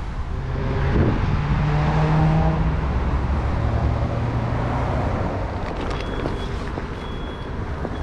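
A car passing by on the street: engine hum and tyre noise swell about a second in, then fade, the engine note dropping as it goes past.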